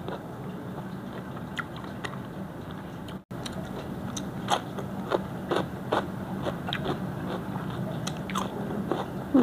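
Close-up eating sounds: repeated crisp crunching bites and chewing, among them bites into a raw cucumber slice, as short sharp crunches over a low steady background hum.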